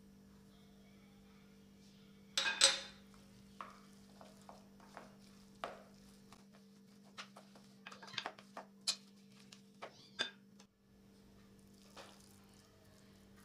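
Wooden spoon stirring a thick cauliflower and breadcrumb mash in a glass bowl, knocking and scraping against the glass. A louder scraping stroke comes about two seconds in, followed by scattered taps and clicks until about ten seconds in.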